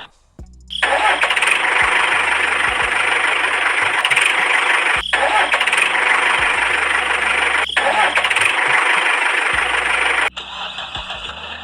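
A vehicle engine sound, loud and rough, starting about a second in after a brief near-silence. It breaks off twice for a moment and drops back to a quieter steady running sound near the end.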